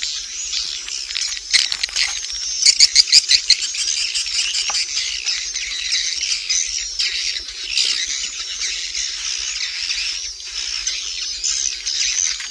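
Swiftlet calls: a dense, continuous high twittering and chirping, with a short burst of rapid clicks about three seconds in.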